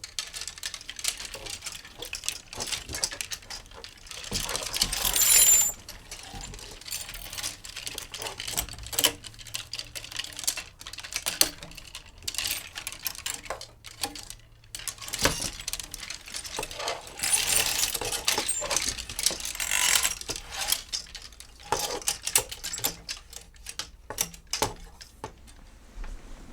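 Clothes hangers sliding and knocking together, a run of sharp clicks and clacks. There are two longer scraping slides, about five seconds in and again from about seventeen to twenty seconds in.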